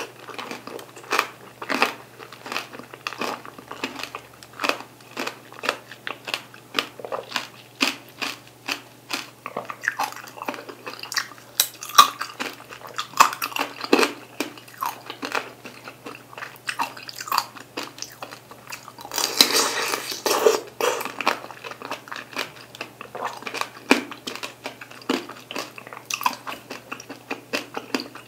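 Close-miked eating of sugar-glazed mandarin tanghulu: the hard candy shell cracks in many sharp crunches between bites and chewing of the juicy segments. There is a louder, denser stretch of crunching about two-thirds of the way through.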